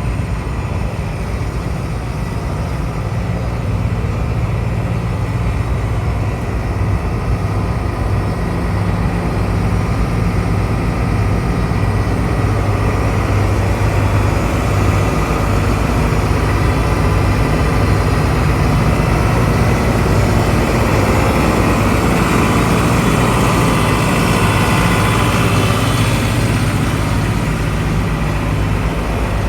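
Case CX210C excavator's diesel engine running steadily, a continuous low engine note. It grows louder and brighter for several seconds about two-thirds of the way in.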